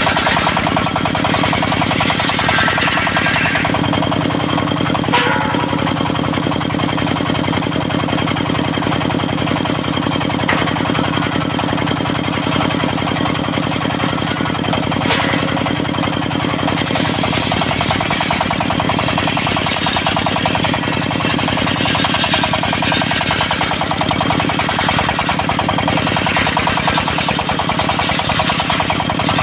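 Diesel engine of a mobile circular-saw sawmill running steadily with a rapid knocking beat. A higher hiss swells near the start and again later on, with two short sharp clicks in between.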